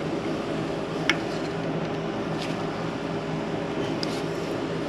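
Steady machine hum of a fan or ventilation unit, with a sharp click about a second in and a fainter click a little over a second later.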